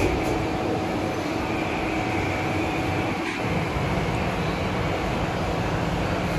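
Steady mechanical hum with a constant rushing noise, unchanging throughout and with no speech.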